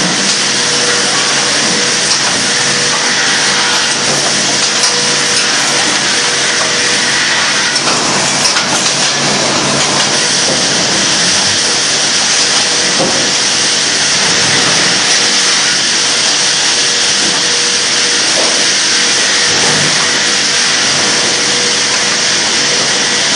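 Loud, steady din of lumber-mill machinery as a random width stacker attachment moves boards off a rollcase, with a faint constant hum under it.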